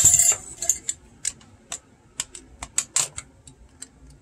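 Light, irregular clicks and clinks of a small metal tool picking at the hard plastic neck joint of a vintage G.I. Joe torso, with its little dog-tag chain rattling. A short scratchy burst at the start, then a dozen or so sharp, uneven clicks.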